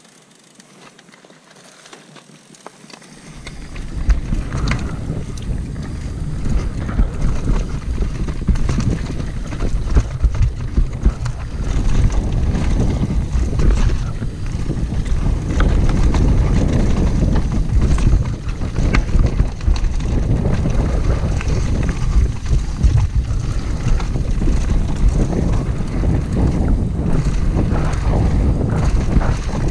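Mountain bike riding fast down a dirt and gravel trail: wind buffeting the camera microphone and a steady low rumble of tyres on the ground, with frequent knocks and rattles from the bike over rocks and roots. It is quieter for the first three seconds, then gets loud as the bike picks up speed.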